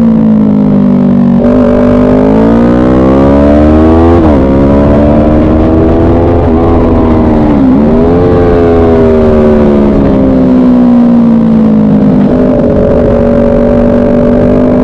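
Motorcycle engine running hard around a race track, revs climbing under acceleration and dropping sharply with gear changes and braking, about twice, then easing down before picking up again near the end.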